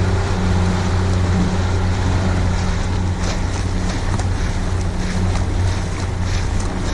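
Boat's outboard motor running at a steady drone while the boat moves along on the water, with water rushing past the hull and wind on the microphone. From about three seconds in come short splashy hisses.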